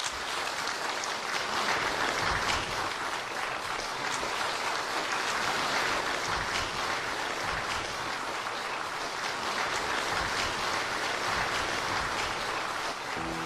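An audience clapping in steady, dense applause. Music comes in just before the end.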